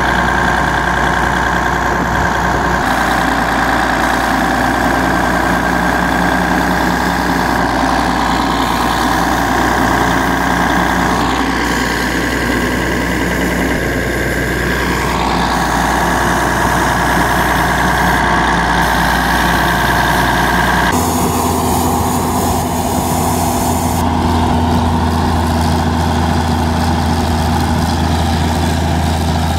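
Heavy engine machinery of a drilling rig and its engine-driven compressor running steadily. About two-thirds through, the sound changes abruptly to a deeper, steadier hum.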